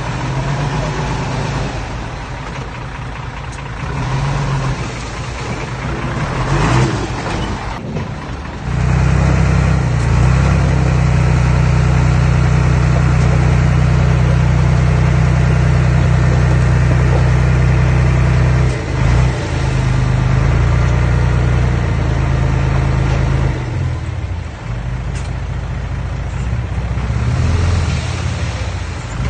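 Engine of earthmoving machinery running, rising to a louder, steady working note about a third of the way in and holding for around ten seconds, with a short dip, before easing back near the end.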